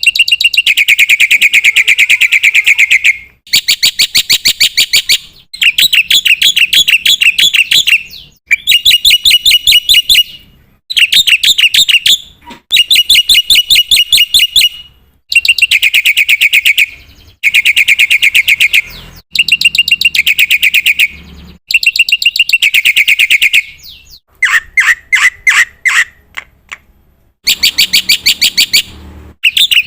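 Black-winged myna (jalak putih) singing loudly in about a dozen bursts of two to three seconds, with short breaks between them. Each burst is a fast run of repeated chattering notes; one burst near the end is slower, with separate sliding notes.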